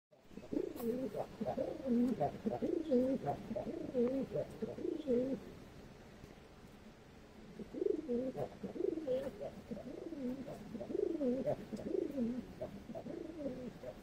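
Chila pigeons cooing in their nest boxes: a string of low coos that swoop up and down in pitch, the display cooing that goes with a pigeon's puffed-up courtship dance. The cooing breaks off about five and a half seconds in and starts again about two seconds later.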